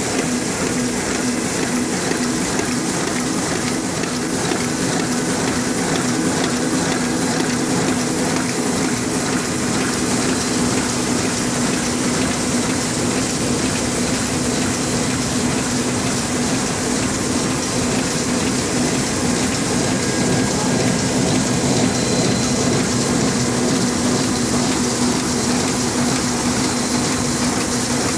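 Heidelberg Printmaster PM 46-2 sheetfed offset press running: a steady, fast mechanical whirr and hiss over a constant low hum.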